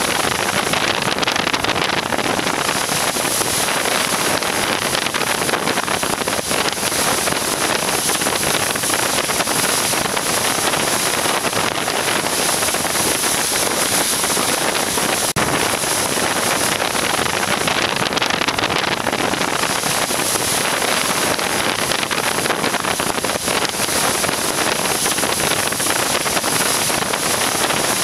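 Steady rush of breaking surf and whitewater close to the microphone, with wind noise on it.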